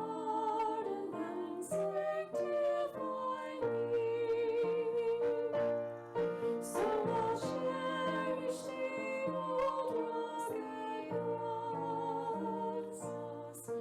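Slow, soft music: held notes, some with a slight waver, over a bass line that moves to a new note every second or so.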